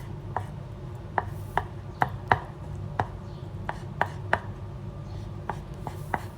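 Knife chopping boiled eggs into small pieces on a cutting board: a string of irregular sharp knocks, about two or three a second.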